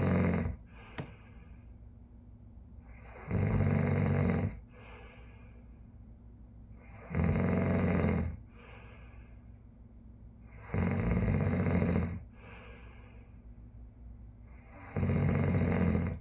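Recorded snoring played from a vinyl record over a tube hi-fi with Altec horn loudspeakers. A loud snore comes on each in-breath about every four seconds, four times, each followed by a softer out-breath.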